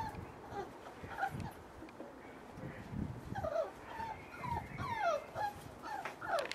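Young puppies whining: short, high calls that slide down in pitch, a few early on and several in quick succession in the second half, with soft low thumps underneath.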